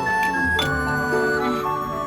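Background music: a light tune of held notes with a ticking, clock-like percussion.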